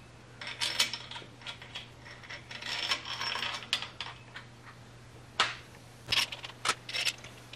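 Steel main bearing caps and bolts clinking and scraping as they are set by hand onto a VW/Audi 1.8T engine block: scattered sharp clicks, a longer rattling scrape about three seconds in, and a few sharp clinks near the end.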